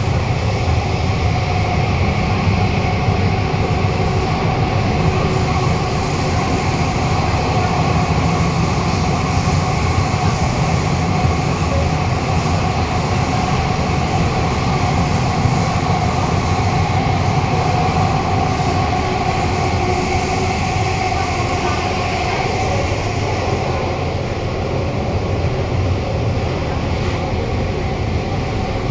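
Interior running noise of a Kawasaki-CRRC Qingdao Sifang CT251 metro train at speed in a tunnel. It is a loud, steady rumble from wheels on rail, with a steady whine over it.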